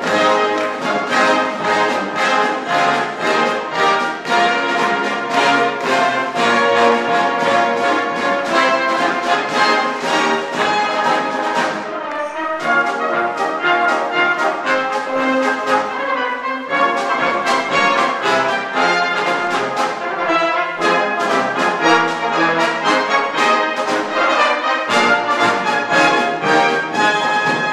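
Salvation Army brass band playing a lively piece, with percussion keeping a steady beat under the brass.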